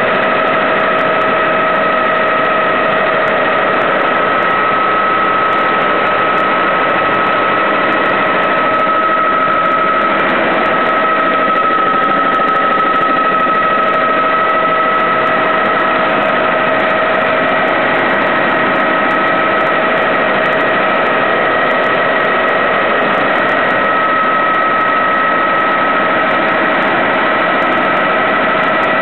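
Bell 206B-3 JetRanger helicopter in flight, heard inside the cabin: the single gas-turbine engine and rotors make a steady, dense noise with a steady high whine over it.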